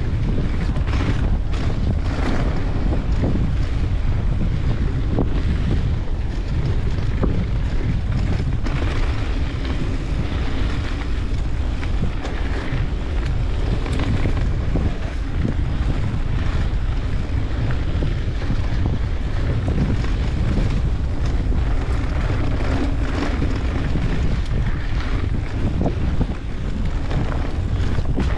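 Wind buffeting the microphone of a camera on a moving mountain bike: a loud, steady rumble, with scattered knocks and rattles from the bike running over rough trail.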